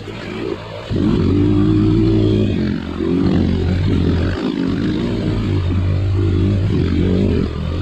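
Trail motorcycle engine running under varying throttle, with brief drops where the throttle is closed just under a second in, around three seconds and around four and a half seconds, each followed by the engine pulling again.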